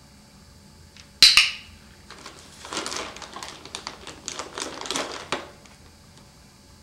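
Plastic treat bag being handled: two sharp clicks close together, then about three seconds of quick crinkling and clicking.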